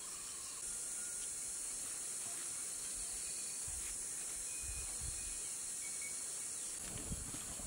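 Steady high-pitched insect drone that gets louder about half a second in, with a few faint low thumps.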